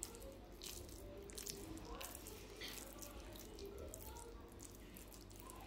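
Faint wet squishing and patting of sticky cooked saffron risotto being pressed and rounded into a ball between wet hands, with scattered soft clicks.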